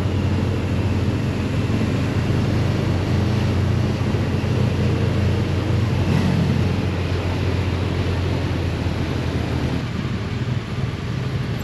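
Motorcycle engine running under way, with wind noise on the microphone and a brief rise in engine pitch about halfway through.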